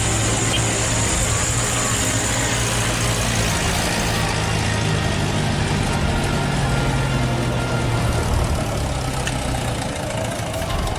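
RC Hino truck's engine sound, a steady low truck-engine drone running at low revs, easing slightly near the end.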